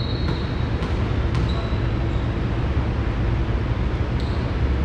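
Steady low rumble of a school gymnasium's background noise, with three light knocks in the first second and a half.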